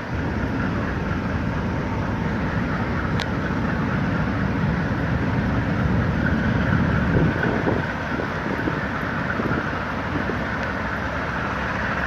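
Train running past with a steady rumble.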